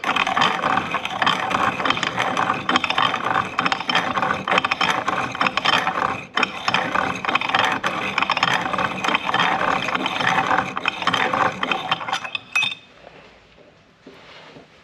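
Hand-cranked piston ring filer: the abrasive disc is spun by the crank handle while a piston ring's end is held against it, giving a continuous rattling grind as the ring end gap is filed. It pauses briefly about six seconds in and stops about twelve and a half seconds in.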